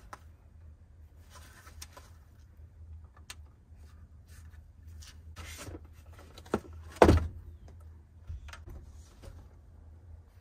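Gear being handled on a van's wooden floor: rustling and clicks as a folding solar panel case and a portable power station are moved about, with a sharp knock and then a heavy thump about seven seconds in, over a steady low rumble.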